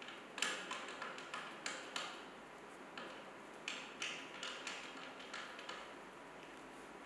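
Adjustable foot on a wooden table leg being turned by hand to level the table, making irregular small clicks and ticks that thin out near the end.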